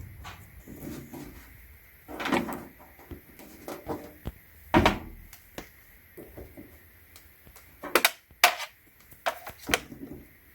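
Scattered clicks and knocks of small objects being handled: charging cables and a phone being moved about, with the sharpest clicks several seconds in and a cluster of them near the end.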